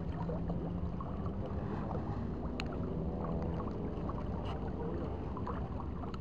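Steady low drone of a boat engine running, with a faint hum.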